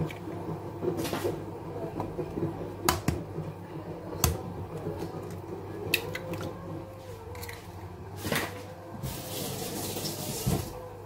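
An egg being cracked on a plastic mixing bowl: a few sharp taps and shell cracks spread out, with a brief rustle near the end.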